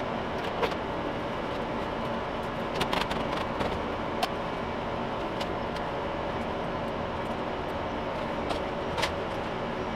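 Cooling fans of a running IBM System x3950 X3 rack server, a steady even noise, with a few light metallic clicks and taps as the steel top cover is laid on and slid shut.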